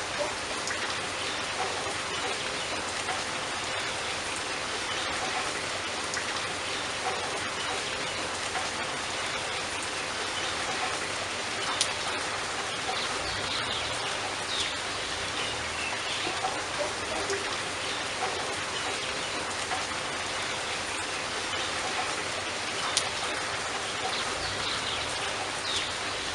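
Heavy rain falling in a steady hiss, with now and then the sharper tap of a single drop.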